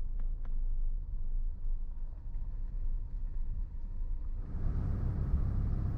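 Low, steady rumble of a car driving, with a few faint clicks at the start; the noise grows fuller about four and a half seconds in.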